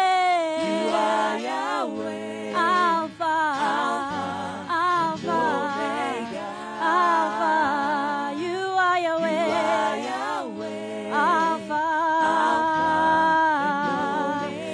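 Gospel worship song sung by a small vocal group, a man's voice leading with women's voices alongside.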